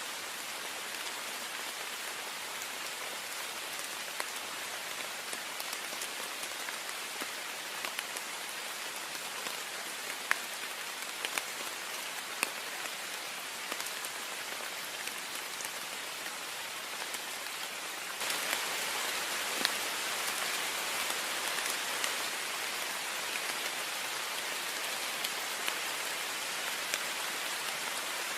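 Heavy rain on a window: a steady hiss of rainfall with scattered sharp taps of single drops hitting the glass. About two-thirds of the way through, it suddenly gets louder and stays so.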